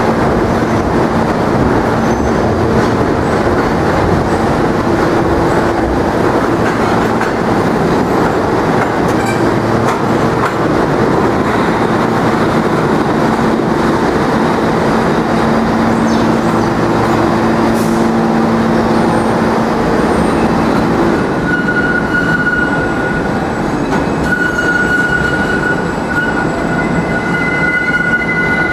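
New York City Subway R160A cars running along the track: a steady rumble of wheels on rail with a low hum from the train. From about 21 seconds in, a thin, high-pitched wheel squeal sets in as the cars go round the curved track.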